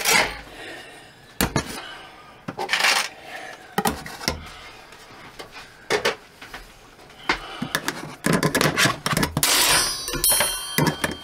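Kitchen knives and shears being set onto a magnetic knife strip, with a series of sharp metal clicks and clacks as they snap onto the magnet. The handling becomes a denser clatter near the end.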